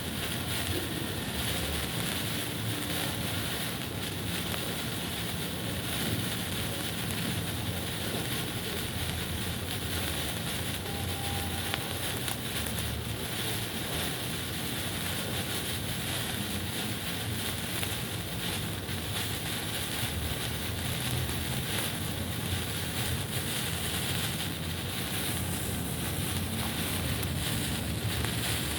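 Signal flare burning with a steady hiss and a low rumble underneath.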